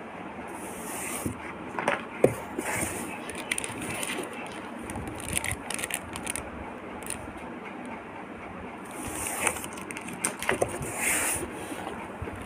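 Paper packing in a cardboard box rustling and crinkling as small product packs are handled and lifted out, with scattered light clicks and taps of plastic packaging.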